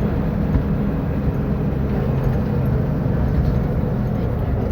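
Diesel engine of a Caio Millennium IV bus on a Mercedes-Benz O500U chassis running steadily, a low even drone.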